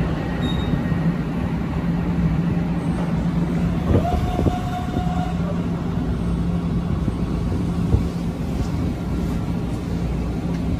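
Metro-North electric commuter train at the platform, a steady low hum running under general noise. About four seconds in, a single steady tone sounds for about a second, and a sharp knock comes near eight seconds.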